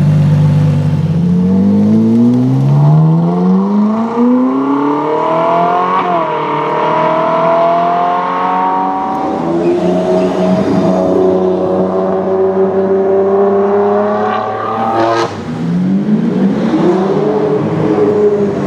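Ferrari V12 supercar engines revving hard. The LaFerrari's V12 note climbs steeply for several seconds with a brief dip at a gear change. Another Ferrari then holds a steady high-revving note, cut off suddenly, before a further climb near the end.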